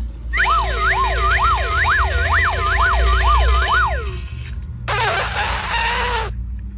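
Siren-like warbling sound effect: a tone sweeps up and down about twice a second for some three and a half seconds. It stops, and about a second later a short burst of hiss with a falling tone follows.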